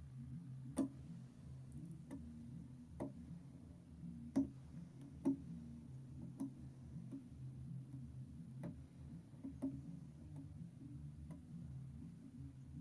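Light sharp clicks or taps, roughly one a second but unevenly spaced, over a low steady hum.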